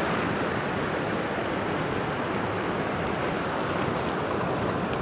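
Fast, shallow water of a rocky mountain river rushing over stones close by, a steady, even rush.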